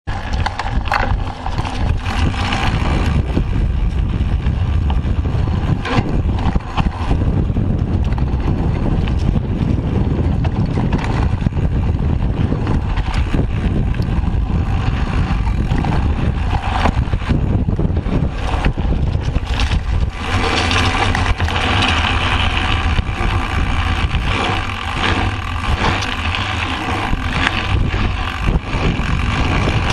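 Mountain bike rolling fast over a dirt trail: a steady rumble of wind on the microphone, with the bike rattling and knocking over bumps.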